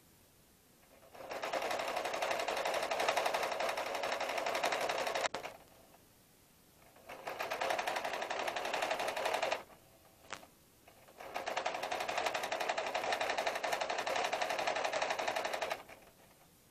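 Electric sewing machine stitching in three runs of a few seconds each, stopping briefly between them, with a small click in the second pause.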